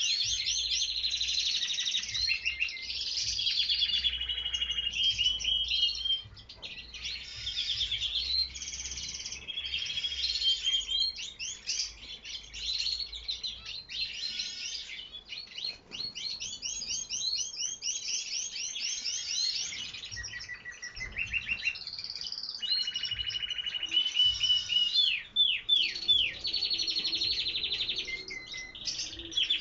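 Domestic canaries singing: continuous high-pitched song made of rapid trills and rolling runs of repeated notes, with only brief pauses.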